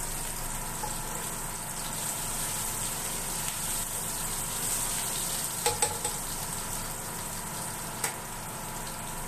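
Chopped garlic and green chillies sizzling in hot oil in a nonstick wok, a steady frying hiss as the garlic browns. Two quick sharp taps come just before six seconds in and another about eight seconds in.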